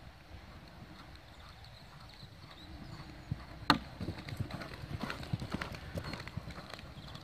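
Pony's hooves cantering on a sand arena, with one sharp loud knock a little past halfway as it jumps a fence, then a run of louder, uneven hoofbeats.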